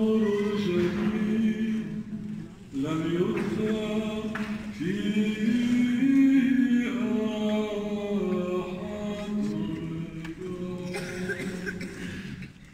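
Voices singing unaccompanied liturgical chant in long held notes, in phrases broken by short pauses.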